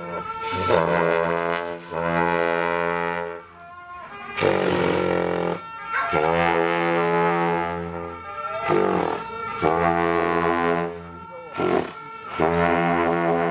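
Tibetan long horns (dungchen) sounding a series of long, low, brassy blasts, each held for a second or two with short breaks between them, some bending up in pitch as they begin.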